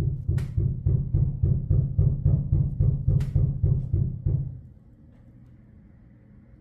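Water hammer in a new apartment's plumbing: a fast, even run of low, deep thuds, about five or six a second, with two sharper knocks among them. The thudding stops abruptly about four and a half seconds in, leaving only a faint hum.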